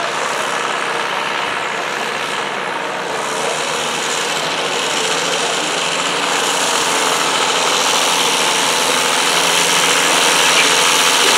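Diesel garden tractor engine running hard under load as it drags a weight-transfer sled, steady and growing gradually louder as it comes closer.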